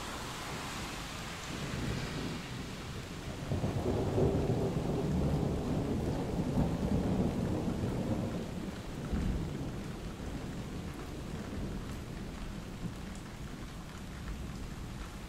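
Thunderstorm: steady rain with a long, deep rumble of thunder that builds about three seconds in, rolls for several seconds and slowly fades.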